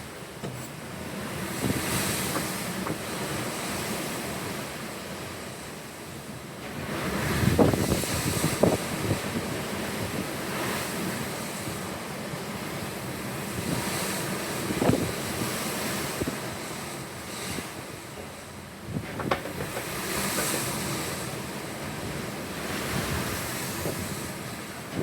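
Pacific Ocean waves washing and surging in slow swells, with wind buffeting the microphone in gusts, strongest about seven to nine seconds in.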